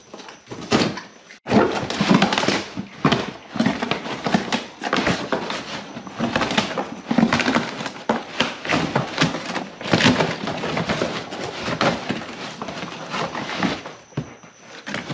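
German shepherd clawing and tearing at a taped cardboard box, a busy irregular run of scratching and ripping cardboard that starts in earnest about a second and a half in and eases near the end.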